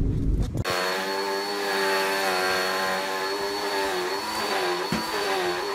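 Vacuum cleaner running, starting abruptly about half a second in after a low rumble. Its motor hum wavers slightly in pitch over a thin, steady high whine as it is run over things on the carpet, with a click or two near the end.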